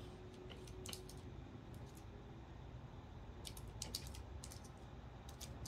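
Pomeranian puppy gnawing at a plastic stroller wheel: faint, irregular clicks of teeth on plastic in small clusters, busiest from about three and a half to four and a half seconds in.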